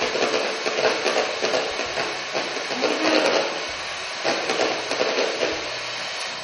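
Handheld electric mixer running steadily, its beaters whipping a thick tiramisù cream in a glass bowl.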